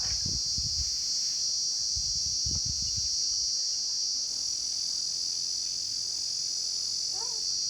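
Crickets chirping in a loud, steady, high-pitched chorus, with a few low thumps in the first three seconds.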